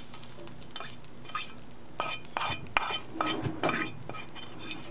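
A metal utensil scraping and clinking against a metal skillet as sautéed daylily buds are pushed out onto a plate, with a cluster of sharp clinks about two to four seconds in.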